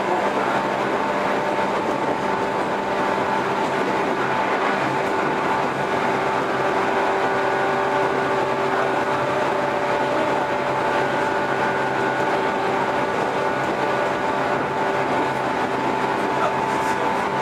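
JR 115 series electric train running at a steady speed. A steady hum of several tones sits over the even noise of wheels on rail.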